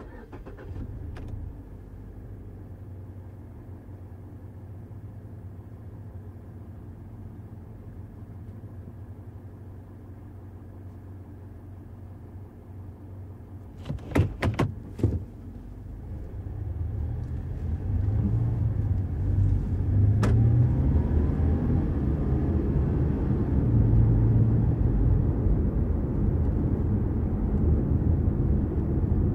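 Mazda CX-5 heard from inside the cabin: the engine starts about half a second in and settles to a steady, low idle. About halfway through there are a few sharp clicks, and then the car pulls away, with engine and road noise growing louder and rising in pitch as it accelerates.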